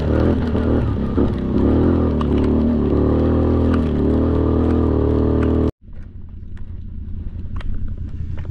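ATV engine running under load, its pitch rising and falling with the throttle. It cuts off abruptly about six seconds in and gives way to a quieter, rougher engine sound with scattered clicks.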